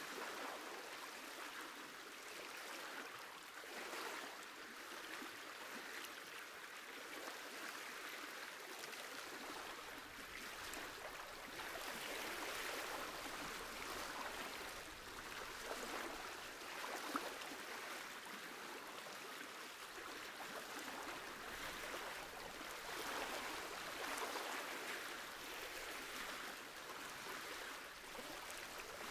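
Sea water lapping and washing around the pier's pilings: a soft, steady rushing hiss that swells and eases every second or two.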